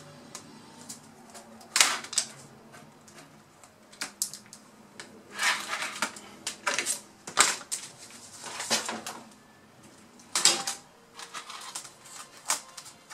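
Replacement keyboard being pressed and seated into a Lenovo B50-80 laptop's top case: irregular sharp plastic clicks and key clatter, some single and some in quick clusters.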